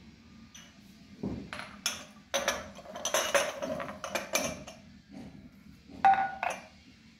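Glass tumblers clinking against each other and being set down on a stone countertop, a run of knocks and clinks, with one glass giving a short ring near the end.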